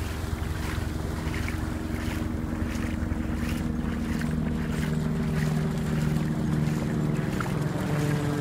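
Wind on the microphone and dogs splashing as they run through shallow water, with a steady low drone underneath that grows stronger about halfway through.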